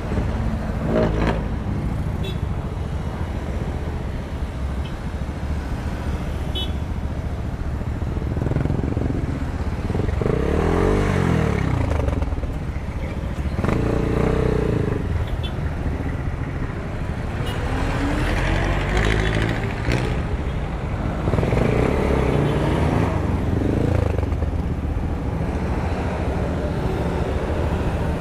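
Motorcycle engine idling steadily close by, with traffic passing: cars and motorcycles accelerating across in front, their engine pitch rising and falling, loudest about ten seconds in and again in the last third.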